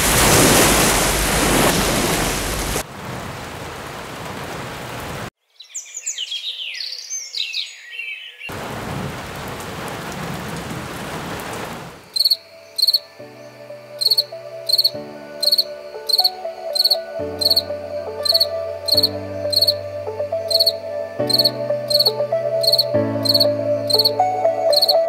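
A run of sleep-machine sound samples: ocean waves washing in, then a softer steady hiss, birds chirping for about three seconds, and another steady rushing noise. From about halfway on it gives way to calm background music with slow chord changes and a light, regular ticking beat.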